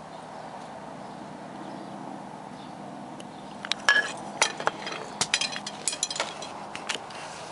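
A steady low hum, then about three and a half seconds in a quick, irregular run of sharp clicks and clinks that stops near the end.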